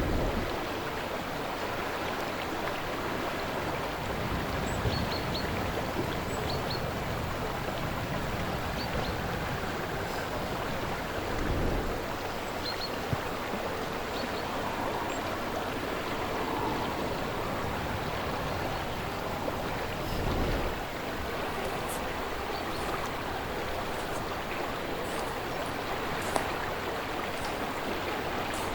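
Slow-moving river flowing: a steady wash of water noise. Low gusts of wind on the microphone swell up about a second in, around twelve seconds in and around twenty seconds in, and a few faint high chirps come in the first half.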